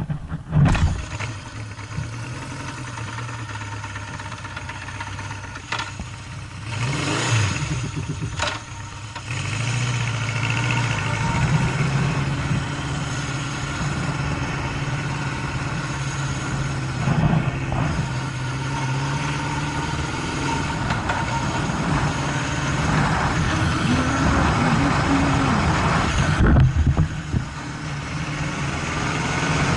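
Honda CB750 motorcycle's inline-four engine starting about half a second in, then idling steadily.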